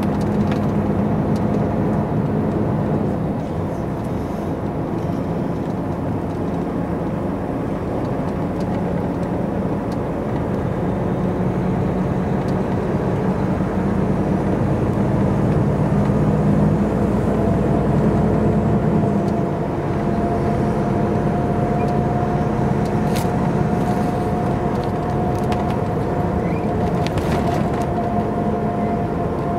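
Volvo FH truck's diesel engine droning steadily with road noise, heard from inside the cab while driving. The engine note changes a couple of times, and a steady higher whine comes in about halfway through.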